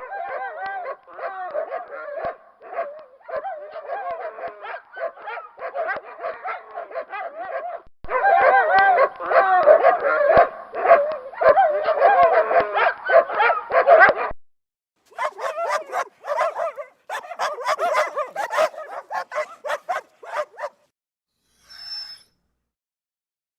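Dogs barking and yelping in quick, high-pitched runs, in three separate stretches cut one after another, the middle one loudest. Two short high sounds follow near the end.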